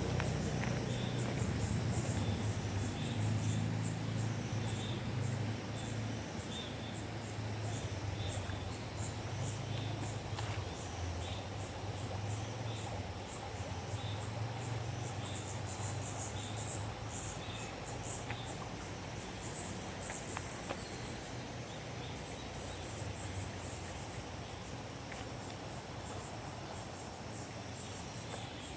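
Insects calling in fast, high-pitched pulsing trills, over a low, steady rumble that is strongest in the first half.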